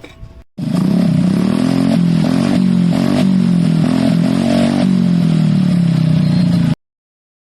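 Motorcycle engine and exhaust running loudly at steady, raised revs with slight wobbles in pitch and a few small throttle surges. It starts suddenly just after the start and cuts off abruptly near the end.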